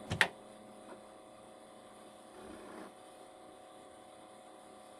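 Faint steady electrical hum from the running Commodore PET 4032 computer and CBM 4040 floppy drive, with a sharp key click just after the start and a smaller click about a second in.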